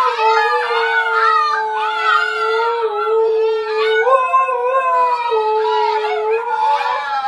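An adult husky and a litter of husky puppies howling together: one long, steady howl with several higher, wavering howls overlapping it.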